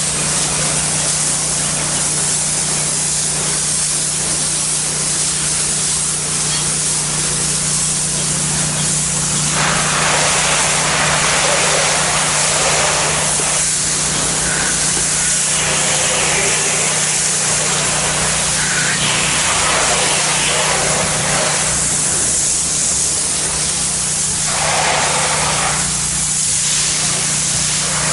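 Pressure washer spraying water through a low-pressure tip onto wet ceramic tile: a steady hiss over the constant hum of the machine, swelling louder in several stretches of a second or more as the spray is swept across the surface.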